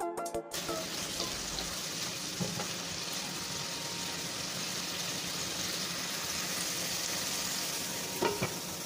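Chicken breast strips sizzling steadily as they fry in butter in a nonstick pan, with a few scrapes of a spatula turning them. Near the end a glass lid clinks down onto the pan.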